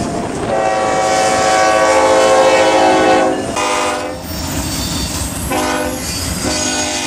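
Diesel locomotive air horn on the Norfolk Southern Central of Georgia heritage unit, sounded as the train passes close by over clattering wheels. A long blast drops in pitch as the lead unit goes past. Then comes a short blast, and another long one starts near the end: the grade-crossing signal.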